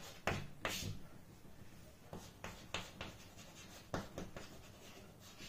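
Faint handwriting: a run of short, irregular scratchy strokes, as a sentence is written out by hand.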